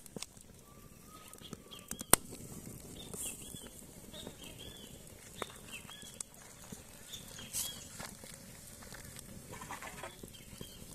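Wood campfire crackling, with a few sharp cracks, the loudest about two seconds in. A bird chirps repeatedly in short high calls through the middle.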